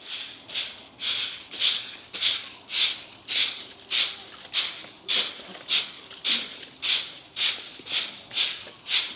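Coconut-leaf stick broom (walis tingting) sweeping in steady, even strokes, one swish a little under twice a second.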